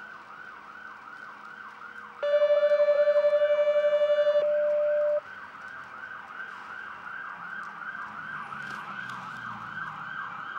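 Electronic siren on an approaching fire engine, in a fast yelp of about three to four sweeps a second, growing louder toward the end. About two seconds in, a loud steady horn-like tone sounds over it for about three seconds.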